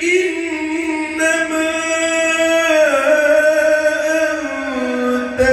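A man reciting the Quran in the melodic style (tilawat), drawing out one long note. The note holds steady, then slides down in pitch about three seconds in and carries on lower.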